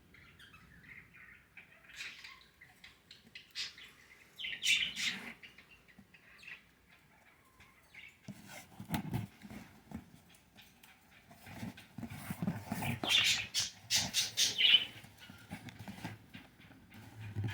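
Budgie chicks in the nest giving raspy chirping calls in bursts, loudest about five seconds in and again from about thirteen to fifteen seconds, over low rustling and bumps.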